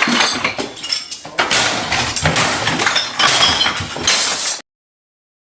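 A long clatter of glass breaking and clinking, many crashes close together with bright ringing, cut off abruptly about four and a half seconds in.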